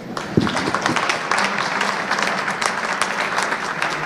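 Audience applauding: many hands clapping together in a dense, steady patter, with a low thump about half a second in.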